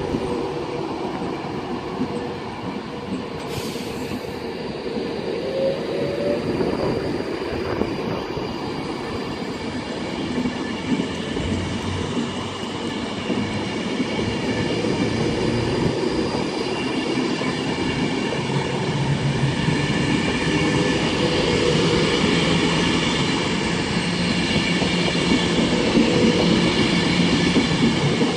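Train running along the line, growing steadily louder, with several high steady ringing tones over the rumble of the wheels.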